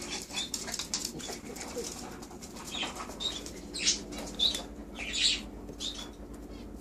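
A few short rustles and scrapes of a hand picking chunks of dog food from plates on a table, with small dogs moving about.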